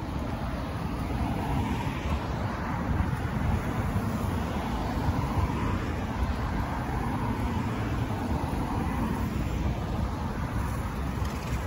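Steady road traffic: cars driving past on a multi-lane city road, with a low continuous rumble.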